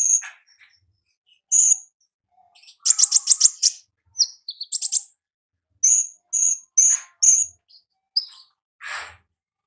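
A konin ninja sunbird's wild-type song: thin, very high chirps in short phrases, with a quick trill of about six notes a few seconds in and a harsher, buzzier call near the end.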